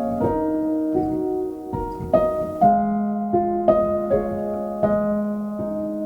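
Background music: slow, gentle piano playing single notes and chords, a new note struck about every half second to second and left to ring.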